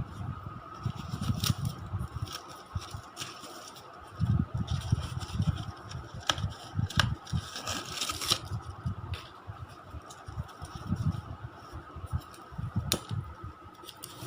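Hands unpacking items: irregular bumps and handling thumps, sharp clicks, and crinkly rustling of packaging, over a faint steady whine.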